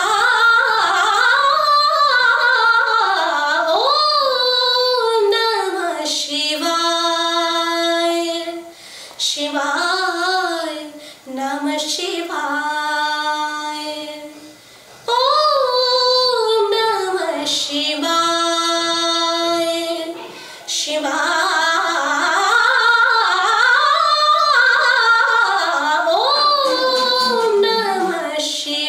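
A woman singing solo. Her phrases move in sliding, ornamented pitch and settle onto long held notes, with short pauses for breath between phrases.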